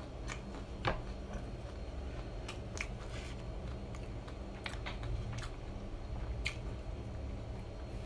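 Close-miked chewing of crispy fried chicken: scattered crackles of the crust and wet mouth sounds, over a low steady hum.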